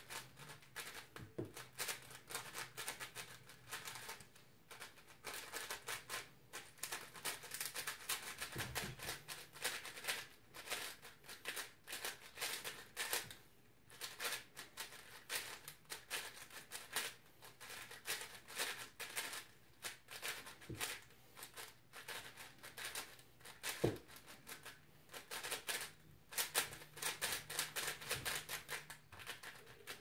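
Rapid clicking and clacking of a magnetic 5x5 speedcube (Cubicle Angstrom Wushuang M) as its layers are turned at speed during a solve, with brief pauses between bursts of turning.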